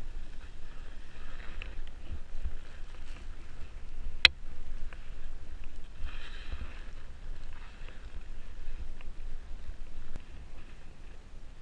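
Skis scraping and sliding on snow through turns down a steep chute, in swishes about a second in and again about six seconds in, over a low rumble of wind on the microphone. One sharp click a little over four seconds in.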